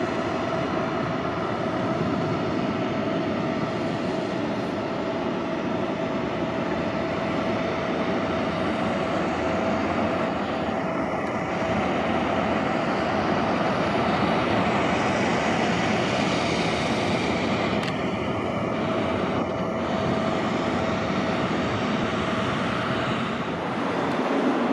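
Aircraft engines running steadily: a continuous rushing noise with a steady tone through it.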